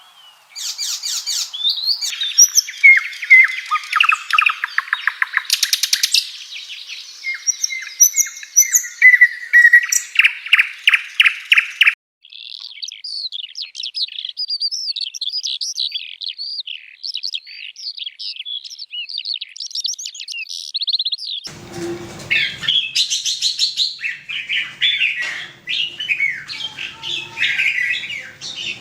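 Songbirds singing: rapid repeated trills and chirps at first, then, after an abrupt cut about twelve seconds in, a fast continuous high twittering warble, and after another cut about twenty-one seconds in, a busier mix of calls.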